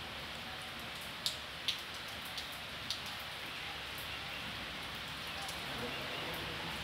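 Steady rain, a continuous even hiss, with a few sharp drops hitting close by in the first half.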